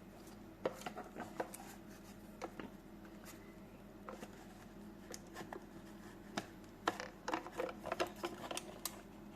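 Scattered light clicks and taps of hard plastic parts being handled and fitted together as the repaired ice tray goes back into a fridge freezer's icemaker unit, coming thicker in the last few seconds, over a low steady hum.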